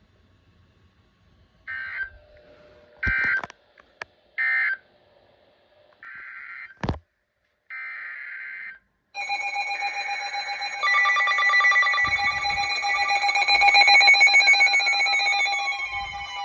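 NOAA Weather Radio digital data bursts, a string of short buzzy screeches about a second apart. Then, from about nine seconds in, a loud steady multi-tone alarm with pulsing beeps from the weather radios, the alert that a new warning is being issued.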